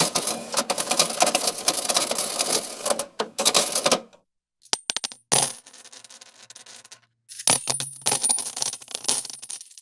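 Metal coins clinking and jingling: a dense run of rattling clinks for about four seconds, then a few coins striking and ringing out about five seconds in, then another burst of clinking coins near the end.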